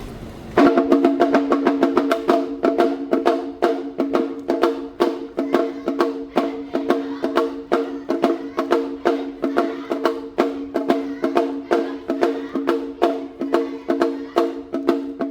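Awa Odori dance music: quick, even percussion strikes about four a second over steady ringing tones. It starts suddenly about half a second in, cutting across crowd chatter.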